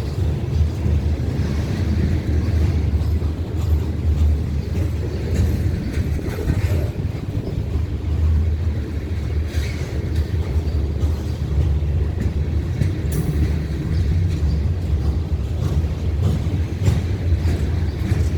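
Ferromex diesel freight train rolling past with a steady low rumble and a little rattle.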